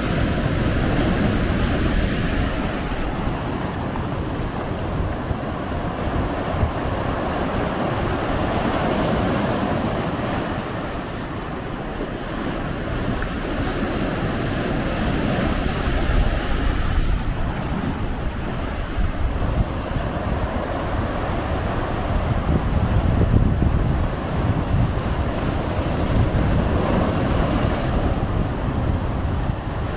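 Ocean surf breaking and washing over a low, flat rock shelf at the water's edge, a continuous rushing wash that swells and eases as each wave comes in. Wind buffets the microphone, adding a low rumble.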